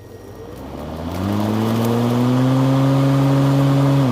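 Hart 16-inch 20-volt cordless lawn mower's brushed electric motor and blade starting up: the whir rises in pitch over about a second, then runs steady and loud, like a vacuum cleaner, before the motor is released and begins to wind down at the very end.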